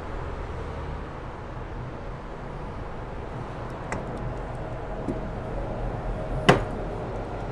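Outdoor town ambience: a steady, distant rumble of road traffic, with one sharp bang about six and a half seconds in.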